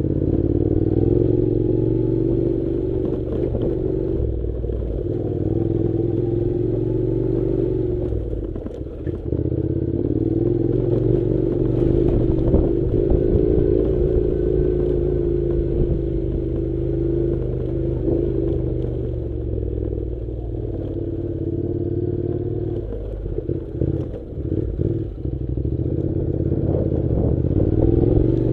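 Honda NC700's parallel-twin engine running at low, fairly steady revs as the motorcycle rides over a rough, rocky dirt track, with rattles and knocks from the bike over the stones. The engine note dips briefly twice, about eight seconds in and again around twenty-four seconds.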